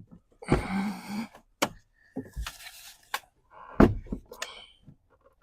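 Heater core housing knocking and scraping against the dashboard as it is twisted and wiggled free, with several sharp knocks, the loudest a little before four seconds in.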